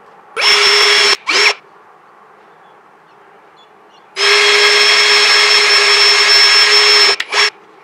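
Cordless drill boring into a wooden board at steady full speed: a run of under a second and a quick blip, then a longer steady run of about three seconds ending with another short blip.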